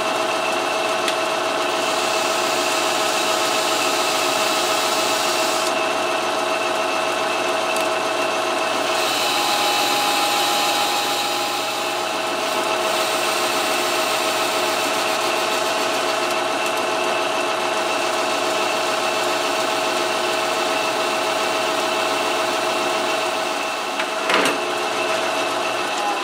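Metal lathe running steadily, its drive giving a whine of several steady tones, while the cutting tool takes light passes of about five thousandths across a spinning metal wheel to turn its crown. A short click comes near the end.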